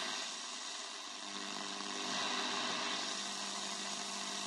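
Tesla Kankán valve radio tuned off-station on the long-wave band: a steady hiss of static from its speaker, with a low hum underneath.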